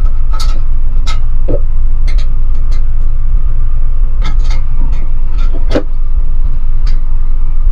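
A loud, steady low rumble with a faint steady whine above it, under scattered short clicks and rustles of gloved hands pressing electrical wire into the clips of a fluorescent light fixture.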